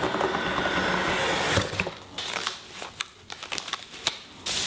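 White protective wrapping around a new ukulele rustling and crinkling as it is handled and pulled open: a dense, steady rustle for about two seconds, then broken crinkles with short pauses, and a louder rustle just before the end.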